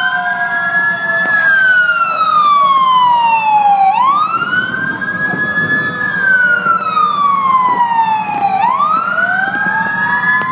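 Siren wailing in slow cycles: each one climbs quickly, then slides slowly down for about four seconds, with new climbs about four seconds in and again near the end. A second, fainter siren wails beneath it, slightly out of step.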